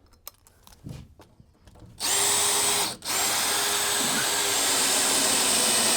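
Cordless power drill driving screws into a 2x4 board: a short run, a brief stop, then a longer steady run of about three and a half seconds, with a steady motor whine.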